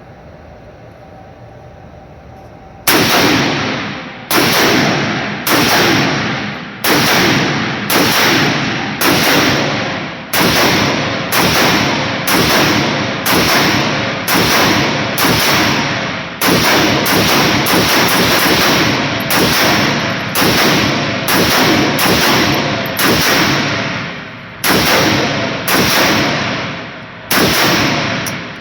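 Rifle fired in a long string of single shots, about two dozen, roughly one a second, each with a ringing echo. The shooting starts a few seconds in.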